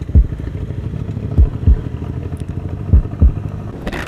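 Heartbeat sound effect, deep double beats about every one and a half seconds, over a Suzuki GSX-R150's single-cylinder engine running steadily at low revs through an aftermarket racing exhaust fitted with a dB killer.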